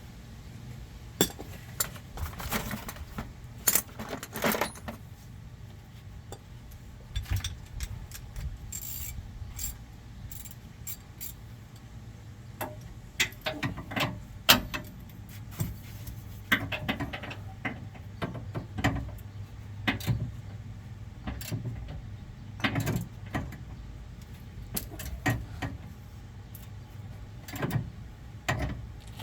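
Hand tools and loose hardware clinking and clanking irregularly against metal during work on a Jeep's sway bar end links. A steady low hum runs underneath.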